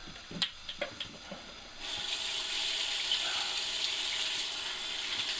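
A few light clicks, then about two seconds in a bathroom sink tap starts running steadily, the water splashing over hands being washed.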